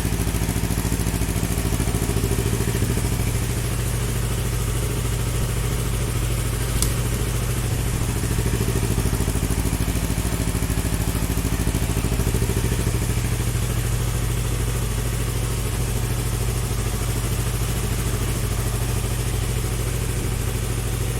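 Yamaha YZF R3's parallel-twin engine idling steadily at an even pitch, with a single sharp click about seven seconds in.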